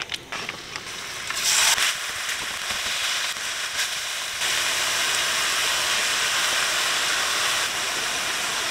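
Ground meat sizzling as it fries in a stainless steel wok, with a few taps of the spatula at the start. The sizzle turns louder about four seconds in and then holds steady.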